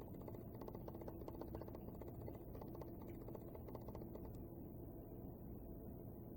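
Faint crunching of a bite of fried, breaded chicken sandwich being chewed: a quick run of small crisp crackles that stops about four seconds in.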